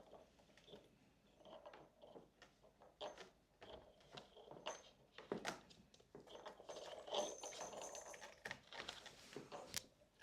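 Faint, irregular light tapping, clicking and rustling of kittens' paws scrabbling on toys and play surfaces.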